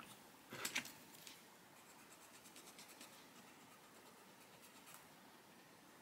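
Faint scratching of a drawing tool working on a colouring-book page, with a couple of short clicks a little under a second in.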